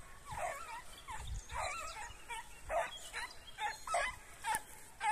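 A dog giving a string of short, high-pitched yelping whines with a wavering pitch, about eight cries in five seconds.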